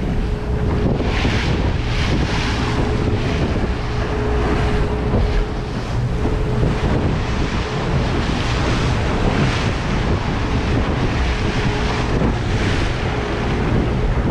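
Wind buffeting the microphone over water rushing and splashing along the hull of a boat running through choppy water, with surges of spray every second or two and a faint steady motor hum beneath.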